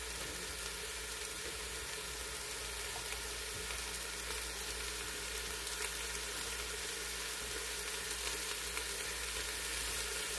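Chuck roast and onions sizzling steadily in an Instant Pot's stainless inner pot on sauté mode, with bouillon liquid being spooned over the meat.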